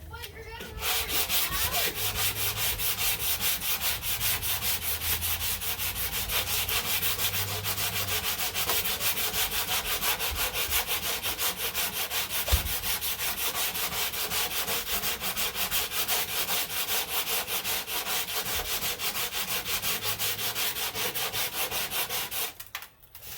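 100-grit sandpaper on a hand sanding block rubbing over body filler in fast, even back-and-forth strokes. It is levelling the filler over a small dent until the paper touches the whole repair. The strokes start about a second in and stop shortly before the end.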